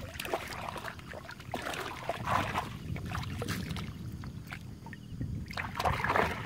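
Shallow muddy water splashing and sloshing in irregular bursts as feet wade through it and a mesh trap is set in it, over a steady low rumble.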